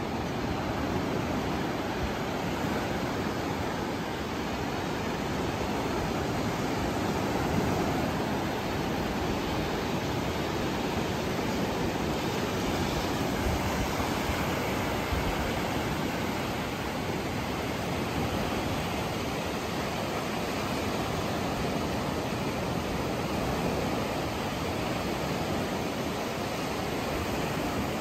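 Surf on a sandy beach: a steady, even rush of waves with no breaks.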